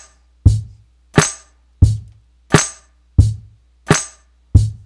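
Sampled drum loop played back from Native Instruments Maschine: a kick and a snare alternating one hit per beat at 88 BPM, a plain two-and-four boom-bap groove. Every hit lands exactly on time because the pattern has just been quantized.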